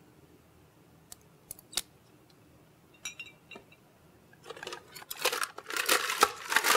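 A few light clicks of barware being handled, then from about four and a half seconds in, ice being scooped from a bar ice bin: a loud, dense clattering rattle of ice cubes.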